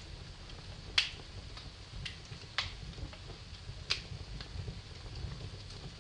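Wood fire burning in a fireplace: a low rumble of flames with scattered sharp crackles and pops, the loudest about a second in.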